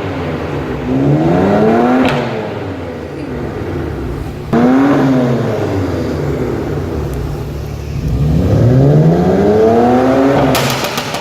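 BMW M4's twin-turbo inline-six engine and exhaust, revved three times, the pitch climbing and dropping each time. There is a sharp crack as the first rev falls, and a quick string of crackles and pops as the last, longest rev drops near the end.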